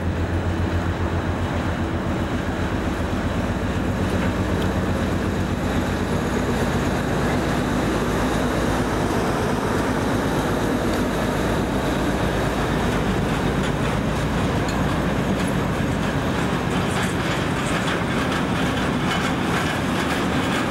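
Class 37 diesel locomotive's English Electric V12 engine running as it passes, hauling a train of flat wagons. Its low engine drone fades after the first couple of seconds into the steady rumble of the wagons rolling by, with clickety-clack from the wheels over the rail joints in the second half.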